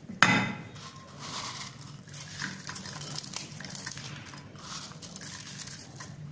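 Crisp farsan being tipped from a bowl onto the chaat and turned in with a steel spoon: a knock about a quarter second in, then light, uneven crackling and rustling of the dry fried mix.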